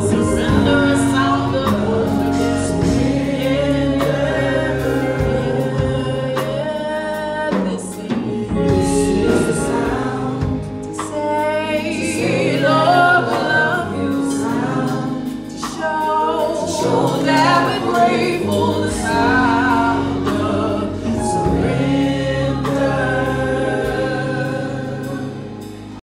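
Gospel praise-team singing: several voices singing together over sustained keyboard chords, fading out near the end.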